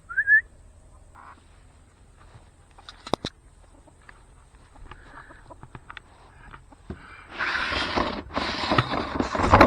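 Chicken squawking briefly with short rising calls at the start, then near-quiet with a couple of sharp clicks; from about seven seconds in a loud hissing, rustling noise takes over.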